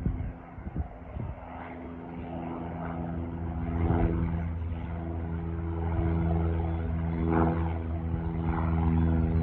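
Light propeller airplane's piston engine running at a steady pitch, growing louder as the plane comes closer.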